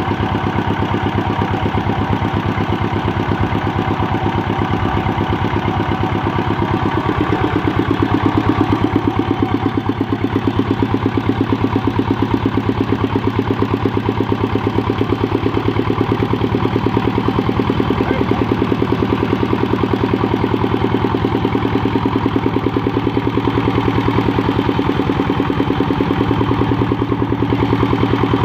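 Single-cylinder 'dompeng' diesel engine of a generator set running steadily, belt-driving the generator, with a rapid, even knock of firing strokes.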